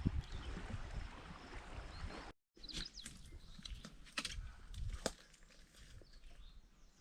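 Outdoor lake ambience: a dense rush of wind and water noise on the microphone, cut off abruptly. It is followed by a quieter stretch with a few sharp clicks and faint bird calls.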